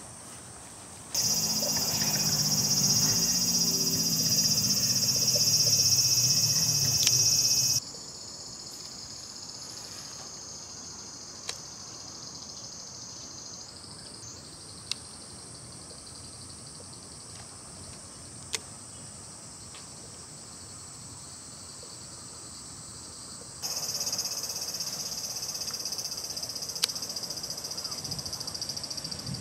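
Pond-side chorus of insects buzzing high and steady, with low frog croaking under the first loud stretch. The chorus is loud for several seconds, drops suddenly to a fainter buzz with a few single sharp clicks, and turns loud again near the end.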